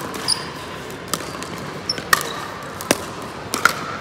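Pickleball rally: sharp pops of paddles striking the hollow plastic ball, with ball bounces, about six irregularly spaced hits over four seconds, echoing in a large hall.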